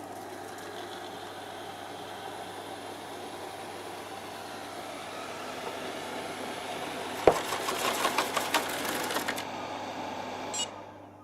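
ILIFE A4 robot vacuum cleaner driving onto its charging dock with its motors running, a steady mechanical whir. About seven seconds in comes one sharp knock, the loudest sound, as it meets the dock, followed by a couple of seconds of rattling clicks; then the motor noise cuts off and winds down as it docks to charge.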